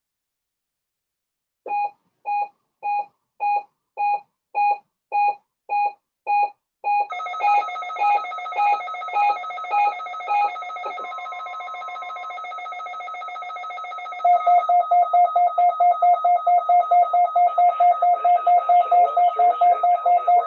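Electronic alert beeping from a weather radio receiver during a NOAA Weather Radio weekly test. Evenly spaced beeps about twice a second start after a short silence and are joined by a steady tone about seven seconds in. From about fourteen seconds a louder, faster pulsing beep takes over.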